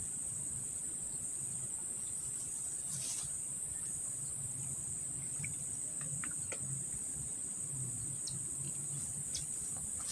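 Insect chorus: a continuous high-pitched trill that does not let up, with a few faint ticks now and then.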